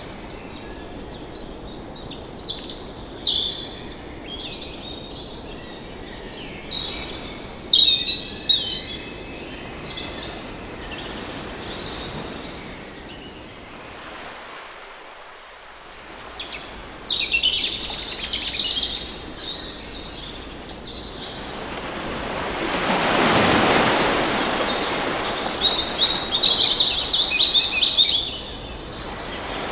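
Birds chirping and singing in several clusters of quick high calls over a steady wash of water. About two-thirds of the way through, a surge of surf swells up and falls away.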